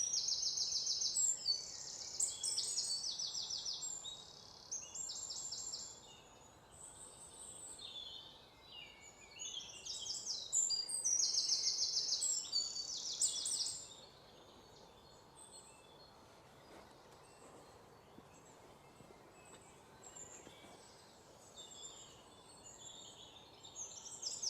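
Birds singing: high-pitched chirps and rapid trills in repeated bouts, fading to a quieter stretch about two-thirds of the way through and picking up again near the end.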